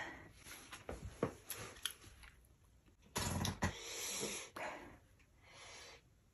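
A man breathing hard after eating extremely spicy instant noodles, with one loud rush of breath about three seconds in and softer hissing breaths after it, among a few small clicks.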